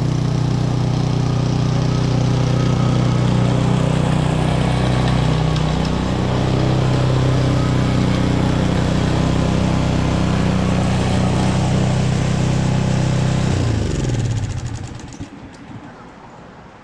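Toro 30-inch TimeMaster walk-behind mower engine running steadily with the blades disengaged. About 14 seconds in it is shut off and winds down to a stop, its pitch falling as it dies.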